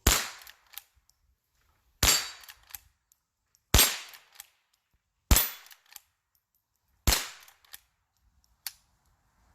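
Five shots from a Henry H001 lever-action .22 rifle, sharp cracks about one and a half to two seconds apart, each followed by a fainter click.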